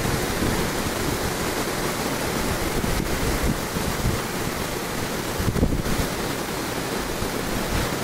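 Rough ocean surf breaking on the beach, a steady rushing noise, with gusts of wind buffeting the microphone, strongest a little past halfway.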